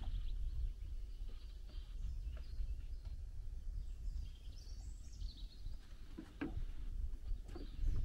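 Songbirds singing in lakeside woods, with a twittering phrase about halfway through, over a steady low rumble. A few footsteps knock on the wooden boards of a dock near the end.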